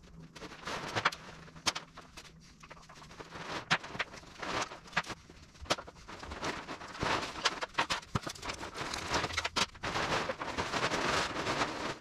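Plastic tarps rustling and crackling as they are pulled down off their hooks and dropped, with many sharp clicks and crinkles, busier and louder from about four seconds in.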